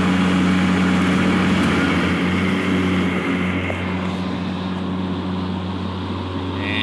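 Two Ryobi 40V brushless push-mower motors, each directly spinning a 21-inch blade under the deck of an electric-converted riding mower, running together with a steady hum. The sound eases slightly after about three seconds.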